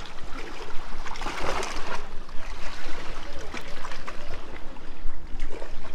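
Sea water splashing and trickling around a kayak, in irregular surges.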